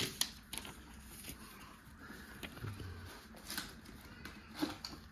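Scattered light clicks and taps from handling a gift and its packaging, with one sharp click at the start.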